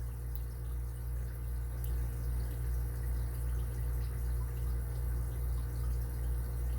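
Faint scraping and light clicks of a lock pick working the pin stack inside an Abus 80Ti padlock, over a steady low hum.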